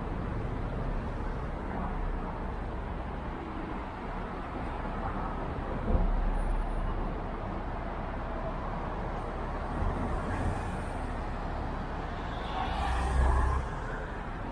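Street traffic, with cars passing over a steady background of city noise. A short knock comes about halfway through, and a vehicle passes louder near the end.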